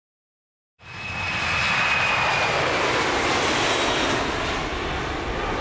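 Aircraft engine noise, a steady rushing roar with a high whine that falls slowly; it starts suddenly about a second in.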